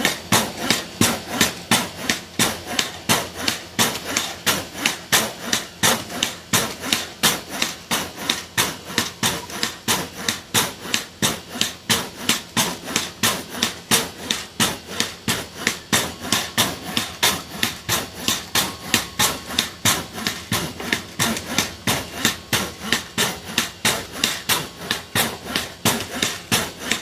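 Pogo stick bouncing steadily, a sharp knock with each landing, about three bounces a second.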